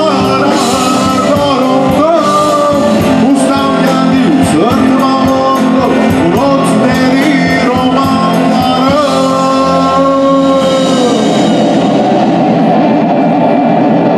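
Live band playing a song, with a man singing over the band; a long held vocal note ends about eleven seconds in.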